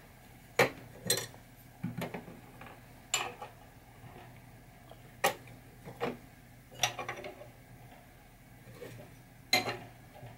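Small metal pinball chime box parts, chime bars and hardware, clinking and clattering as they are picked up and set down: about eight sharp, brief clinks at irregular intervals.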